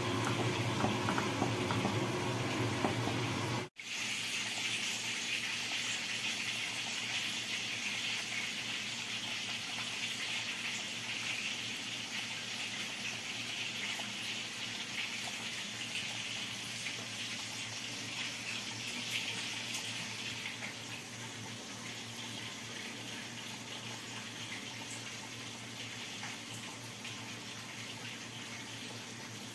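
Chicken and pineapple slices simmering in a sweet sauce in a frying pan: a steady sizzling, bubbling hiss as the sauce reduces, easing a little in the last third. The sound cuts out for an instant about four seconds in, after tongs have been turning the chicken.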